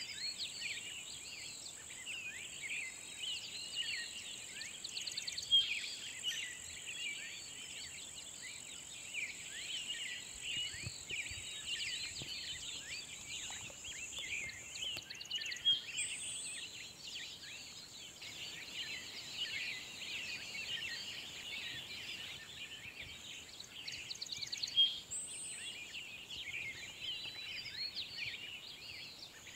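Many birds singing at once in a dense, unbroken chorus of overlapping chirps and trills, with a few louder calls standing out. A steady high-pitched buzz runs underneath.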